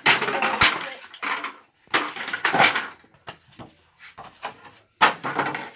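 Discarded toy packaging being crushed and handled, in three crackly bursts.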